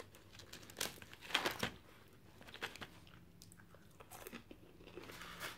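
A person eating McDonald's french fries close to the microphone: scattered short bites and chewing noises.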